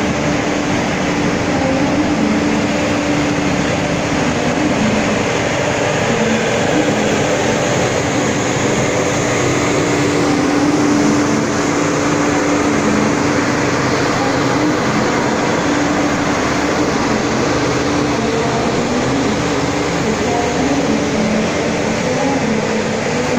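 Indonesian passenger train coaches rolling past a station platform as the train pulls out, a steady rumble with an engine-like hum that is strongest about ten seconds in, as the train's diesel generator car goes by.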